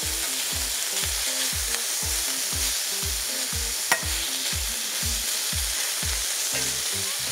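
Beef fillet strips sizzling in olive oil on a hot griddle plate, with one sharp click about four seconds in.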